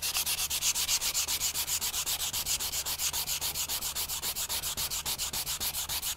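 Hand sanding of a wooden board with sandpaper on a pad, in rapid, even back-and-forth strokes, about ten scrapes a second. The sanding is over a gap wetted with CA glue, so the sawdust mixes into the glue and fills the gap.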